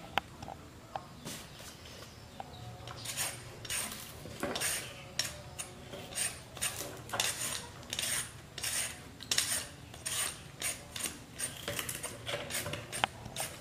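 Metal hand peeler scraping the skin off a firm green fruit in quick repeated strokes, about two a second, starting about three seconds in.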